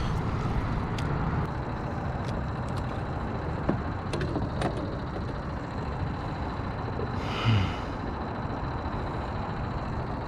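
Steady low rumble and wind noise of a small fishing boat trolling slowly, with a few light clicks and a short breathy snort about seven and a half seconds in.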